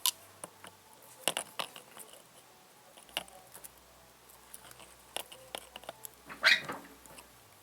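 Irregular light metallic clicks and clinks from working a freshly resealed hydraulic bottle jack during a lift test, with a longer, louder noise about six and a half seconds in.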